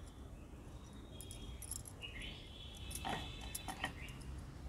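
Metal bangles on the hands rolling a dough log clinking lightly a few times, mostly about three to four seconds in, over a faint high steady chirping in the background.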